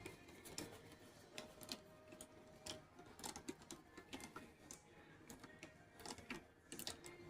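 Faint, irregular clicks and taps of a hand tool on metal as screws on a soft-wash pump's housing are tightened one after another.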